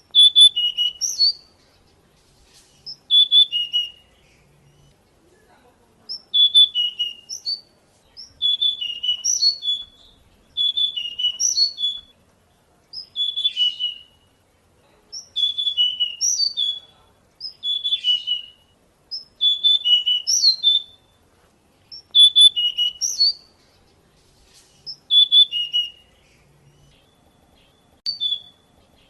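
Pied bushchat singing: short, quick warbled phrases of about a second each, repeated every couple of seconds with brief pauses between.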